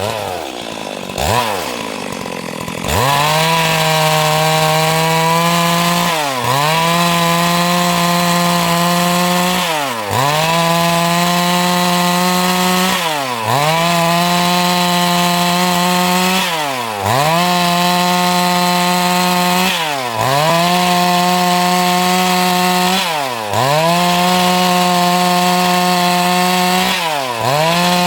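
Stihl MS382 two-stroke chainsaw cutting wood at high revs. Its engine note drops sharply and recovers about every three and a half seconds, over and over, as the cuts load it or the throttle is eased between them.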